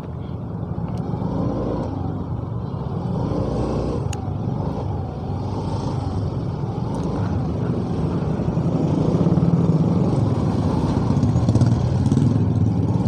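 Motorcycle engine running at low speed in slow, congested traffic, its note rising and falling repeatedly with the throttle, amid other traffic close by.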